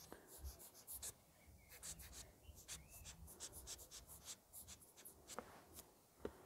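Very faint, irregular short puffs and soft ticks, typical of a rubber blower bulb being squeezed again and again to blow dust off a camera's glass window, with light handling of the camera.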